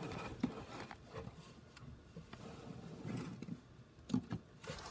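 Faint handling noise of plastic toy animal figurines being moved about on the floor of a cardboard box: light rustling with a few small knocks, the clearest a little past four seconds in.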